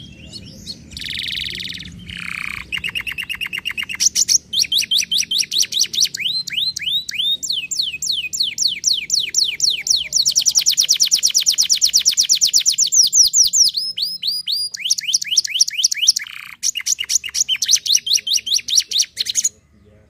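Domestic canary singing a long song of rapid repeated-note tours: a buzzy note, fast trills and runs of quick downward-sweeping whistles, with a long even trill in the middle. The song breaks off briefly a few seconds before the end, resumes, then stops just before the end.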